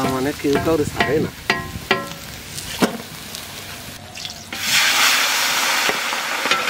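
Hot oil in a wok sizzling as fish pieces are dropped in; the sizzle starts suddenly about four and a half seconds in and holds steady and loud. Before that, a few short bursts of voices.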